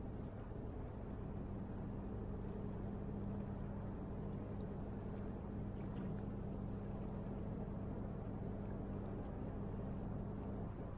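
Steady low drone of a distant ship's engine carried over open water, a constant hum with a soft hiss of air around it.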